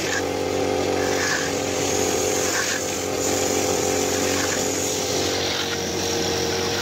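A motor running steadily, a constant drone that neither rises nor falls.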